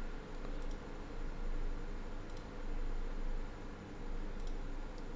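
A computer mouse clicking four or five times, a second or two apart, over a low steady room hum.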